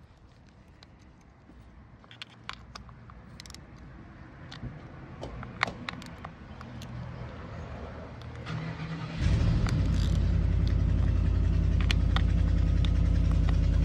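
A few light clicks and knocks, then about nine seconds in an engine starts up and keeps running, loud and steady.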